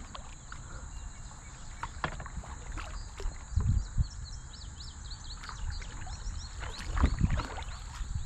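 Kayak paddling: water splashing and dripping from the paddle, with two heavier low knocks about three and a half and seven seconds in. A bird chirps a quick run of notes in the middle.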